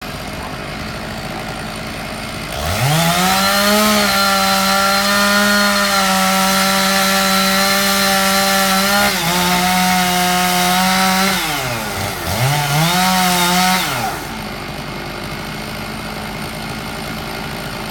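Chainsaw revving up to full speed about two and a half seconds in and running high and steady for several seconds, dipping slightly partway through. It then drops, revs once more briefly and falls back to a low steady running sound near the end.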